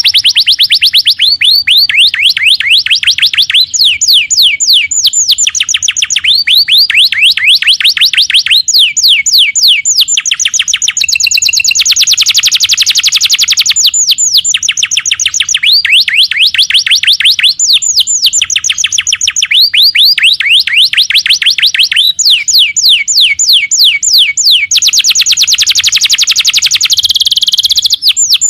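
Domestic canary singing nonstop: a long song of rapid trills, each phrase a fast run of repeated high sweeping notes, switching to a new phrase every second or two with no pauses.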